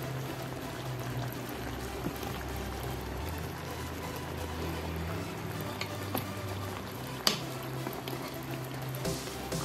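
Pork steak simmering in its thick marinade sauce in a pan, a steady bubbling as the sauce reduces until the oil comes out. A spoon clicks against the pan once, about seven seconds in.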